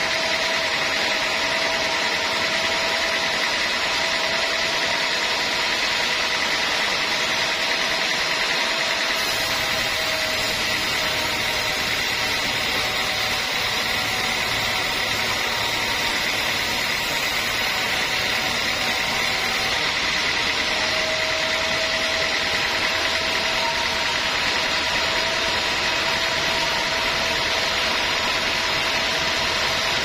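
Vertical band sawmill running, its blade sawing lengthwise through a teak plank: a steady hiss with a few held tones. A low rumble joins about nine seconds in.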